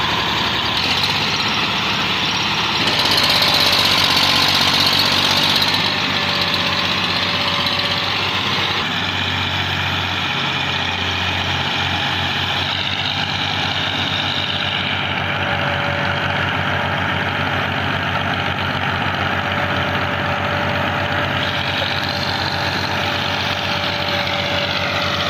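Diesel farm tractor engines running steadily under heavy load as they tow a loaded sugarcane trolley, louder for a few seconds about three seconds in.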